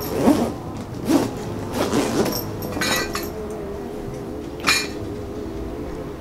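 Drinking glasses clinking against each other as they are handled in a leather bag: about five separate clinks, the last a little under five seconds in.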